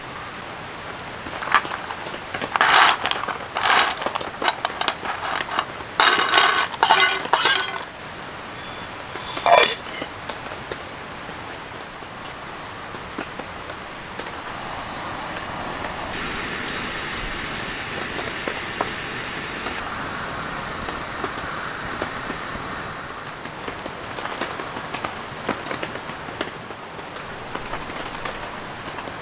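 Metal cooking pot and lid clattering and clinking in quick knocks for several seconds, ending in a single ringing clink about ten seconds in. Later a steady hiss lasts for about eight seconds, then fades.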